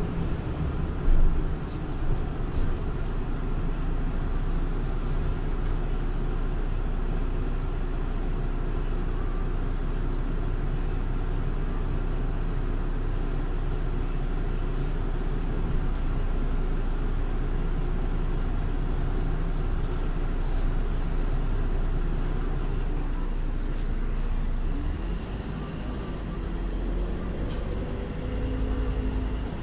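MAN Lion's City LE Ü city bus running, with its D0836 EEV six-cylinder diesel and ZF Ecolife automatic gearbox heard from inside the passenger cabin ahead of the rear axle as a steady low drone. There are a few knocks about a second in. Near the end the drone drops a little and a whine rises and falls.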